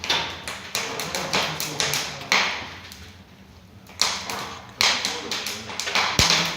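Irregular knocks and clanks from handling a Brunner Panorama fireplace insert and its door: about a dozen sharp taps spaced unevenly, with a quieter gap near the middle.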